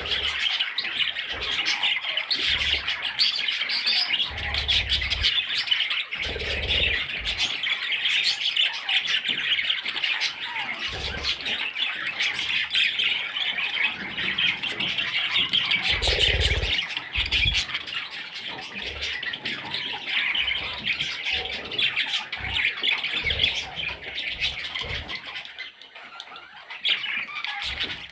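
Parrot chicks, budgerigars, squawking and chirping nonstop, many calls overlapping into a dense chatter, with scattered low thumps.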